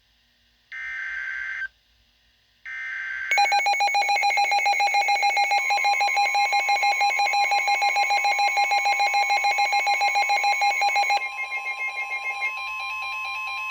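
Emergency Alert System header and alert signal: two short screeching digital data bursts with silence between them, then a loud electronic alert tone that pulses several times a second. A second steady tone joins about 6 s in, and the pulsing pattern changes about 11 s in.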